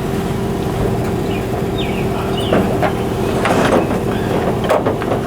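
A steady machine hum with a constant tone, and a few clicks and rattles around the middle and again near the end.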